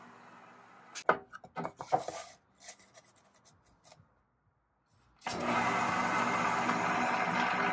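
A quick run of knocks and scrapes as things are handled on the wooden drill-press table, then, about five seconds in, a benchtop drill press starts sounding suddenly and runs steadily, its 1-7/8-inch Forstner bit boring into the wooden cigar box.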